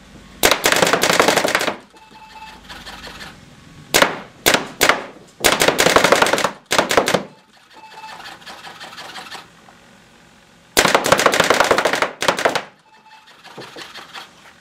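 DLX Luxe 2.0 electronic paintball marker firing reballs: three rapid-fire strings of about a second and a half each, with a few single shots in between.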